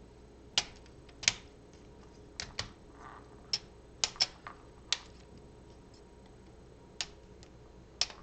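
LEGO Technic plastic parts clicking and tapping as they are handled and pressed together: about a dozen short, sharp clicks at irregular intervals.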